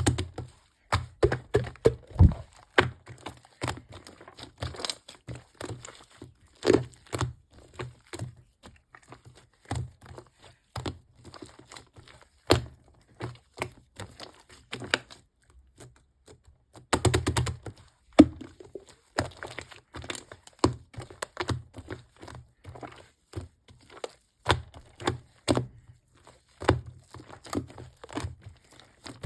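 Shaving-foam slime being squeezed and pressed by hand, giving a steady run of irregular crackling pops and clicks, with a thicker cluster of them about two-thirds of the way through.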